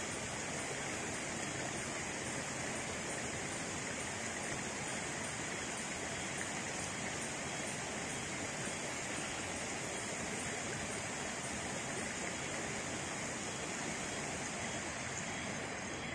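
Steady rush of a jungle stream running over rocks, with a constant high hiss above it.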